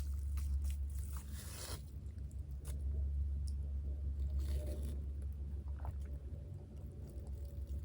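Close-miked eating of fried chicken and fries: chewing with scattered crunches, and two longer crunching bursts about a second and a half and four and a half seconds in, over a steady low hum.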